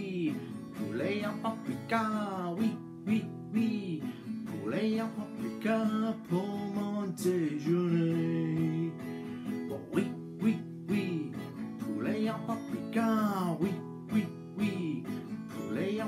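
Acoustic guitar strummed with a capo on the neck, with a man singing along in rising and falling vocal lines.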